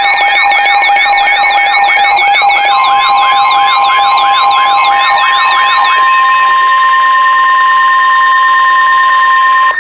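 Electronic alert tones: a warbling siren sweep repeating about three times a second over steady tones, joined about three seconds in by a steady alarm tone near 1 kHz, typical of the NOAA Weather Radio 1050 Hz warning alarm tone. The sweeps stop around six seconds in, and the steady tones cut off sharply near the end.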